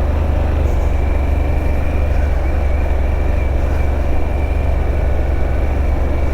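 Harley-Davidson Pan America's V-twin engine running steadily at low speed off-road, a constant low drone with a faint high whine.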